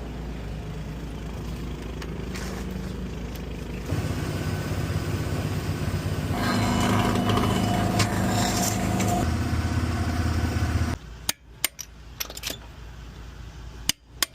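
A motor or engine running steadily, changing pitch about four and six seconds in and cutting off suddenly about eleven seconds in, followed by a few sharp clicks.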